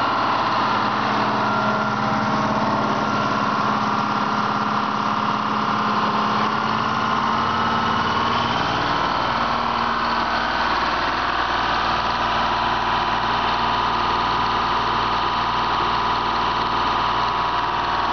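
Detroit Diesel engine of a 225 kW diesel generator set running steadily. A deeper low hum joins about eight seconds in.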